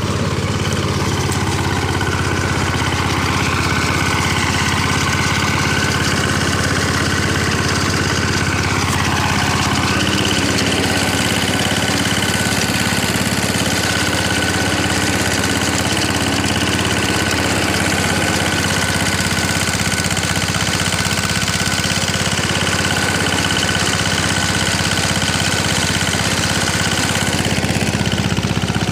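Apollo mini tractor's engine running steadily while driving a rear rotary tiller through soil, with a steady high whine over the engine note.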